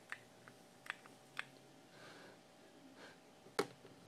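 Faint, irregular clicks of a copper tube mod's fire button, pressed several times to pulse the twisted-wire coils on an RDA. Near the end comes one sharper knock as the mod is set down on the table.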